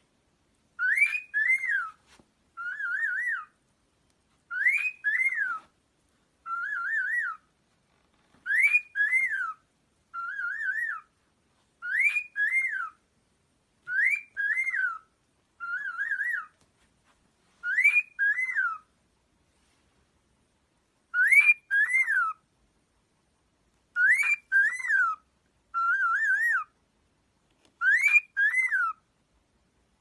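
Cockatiel whistling the same short tune over and over, about one phrase every two seconds, with silence between. A wavering, warbling phrase alternates with a two-note whistle that rises and falls.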